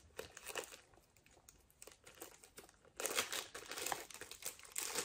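Wrapping being unwrapped by hand, crinkling and rustling: a few light rustles at first, a pause of about two seconds, then steady crinkling from about three seconds in.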